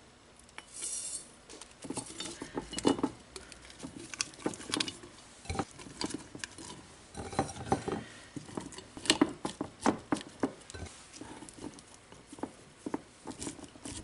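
Cucumber slices being dropped and pressed by hand into a glass canning jar: irregular soft taps and clicks of the slices against the glass, with occasional clinks of glass on glass.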